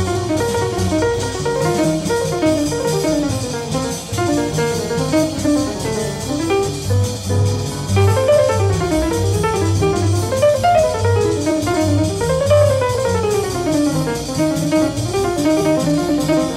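Jazz background music: a guitar playing melodic runs over a drum kit with a steady beat.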